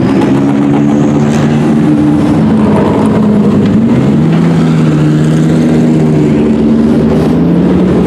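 Race car engines running at low revs as the cars crawl down pit lane close by, among them an Audi R8 LMS GT car passing right alongside. The engine note is loud and steady, stepping up in pitch about four seconds in.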